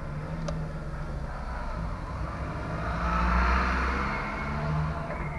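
City street traffic: car engines running with a steady low hum, growing louder around three seconds in and then easing off. A single sharp click about half a second in.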